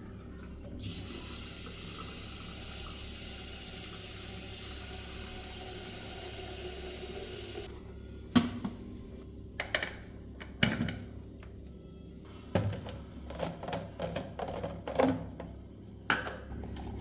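Water running steadily from a tap for about seven seconds, then shut off abruptly. It is followed by a string of sharp knocks and clatters, like objects being handled and set down.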